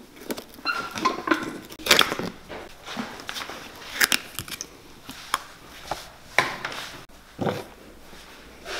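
A steel pry tool working the nailed leather heel off a Wesco boot: irregular cracks, creaks and scrapes of leather and nails as the heel is pried loose.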